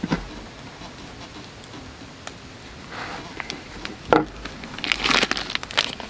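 Knife cutting into and tearing apart a fried, breaded curry bun on a wooden board. The crisp crust crackles and crunches in short spells, with a sharp crack a little after four seconds in and the densest crackling around five seconds and again near the end.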